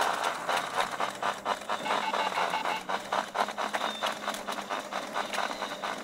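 Firewheel electric unicycle clattering as it rolls, a rapid run of clicks like playing cards in bicycle spokes. It is a horrible noise coming from inside the wheel, the sign of something rubbing or slapping in the rotating wheel.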